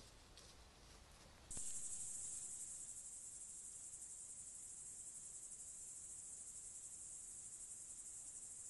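Crickets trilling in a steady, high, fast-pulsing chorus that starts abruptly about a second and a half in; before that only faint quiet outdoor sound.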